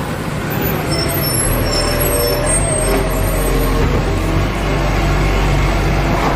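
Steady heavy truck-engine rumble with hiss, a low hum setting in about a second and a half in.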